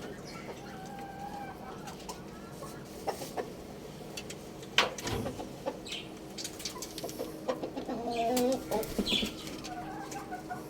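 Chickens clucking, with scattered sharp taps and a louder burst of calls about eight seconds in.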